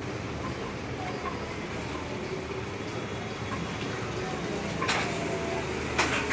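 Steady low background rumble, with two brief rattles about five and six seconds in as the zebra roller blind's pull cord is handled.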